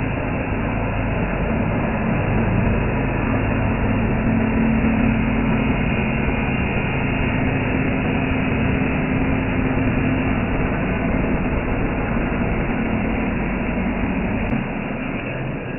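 CNC machine running steadily, a constant mechanical noise with a low hum; it drops in level near the end.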